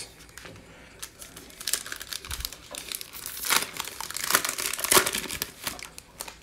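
Foil wrapper of a 2020 Illusions football trading-card pack crinkling and crackling as it is torn open by hand. The crackles start about a second in and are loudest around the middle and again near the end.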